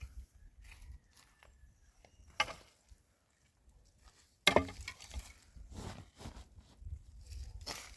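Scattered sharp knocks and clatter, as of something being handled or struck. The loudest come about two and a half and four and a half seconds in.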